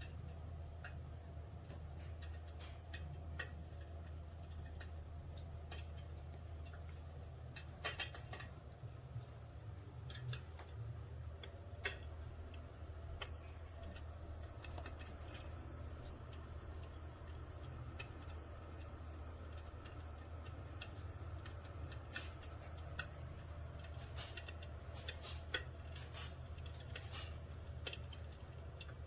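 An electric fireplace insert's crackling-fire sound effect: soft, irregular crackles and clicks over a steady low hum.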